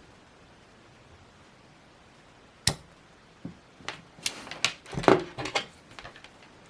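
Pliers and thin speaker wire being handled while stripping insulation: a single sharp click about two and a half seconds in, then a run of irregular small clicks and rustles.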